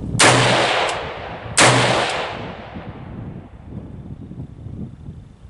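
Two rifle shots from a Springfield Armory Saint Victor AR-15 in 5.56 mm, fitted with a muzzle brake, about a second and a half apart. Each sharp crack trails off in a long echo.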